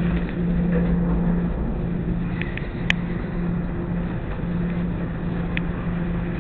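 Steady low machine hum of commercial laundromat dryers running, with a sharp click about three seconds in.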